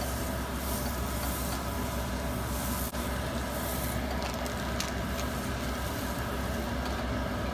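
A steady hum and hiss, with a few faint ticks of a spatula stirring mini marshmallows melting in butter in a pot on the stove.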